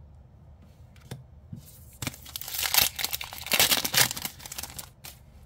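Foil wrapper of a trading-card booster pack crinkling as it is torn open and handled. The crinkling starts about two seconds in and lasts about three seconds, in uneven crackly bursts.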